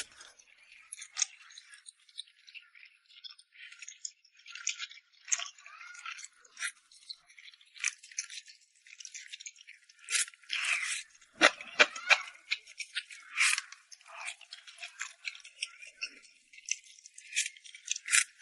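Close-miked eating sounds of someone chewing rice noodles: irregular wet clicks and smacks, with a few louder mouthfuls about ten to fourteen seconds in.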